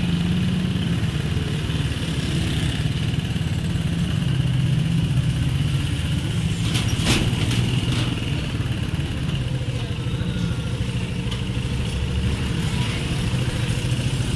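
A small motorcycle engine running steadily close by, with street traffic around it. A few short sharp clicks come about seven to eight seconds in.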